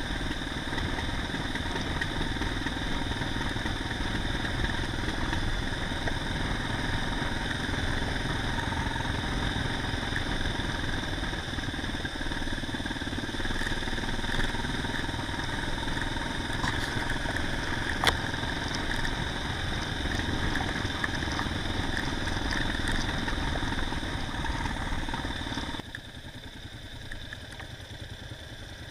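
Adventure motorcycle ridden along a dirt forest track: the engine runs steadily under way, mixed with road and gravel noise, with one sharp click about two thirds through. Near the end the sound drops sharply to a quieter engine idle as the bike stops.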